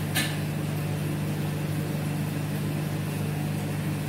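A steady low mechanical hum, with one short click just after the start.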